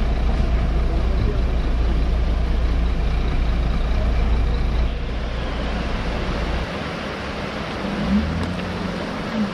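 A heavy vehicle's engine runs with a deep, steady rumble. It drops in level about five seconds in, and its lowest rumble fades out near seven seconds, as if the vehicle throttles down or moves off.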